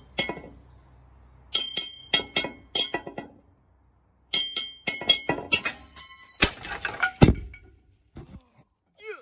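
A knife blade tapping a glass beer bottle in quick runs of ringing clinks, four or five strikes at a time. About two-thirds of the way through come two heavier knocks, and then it goes quiet.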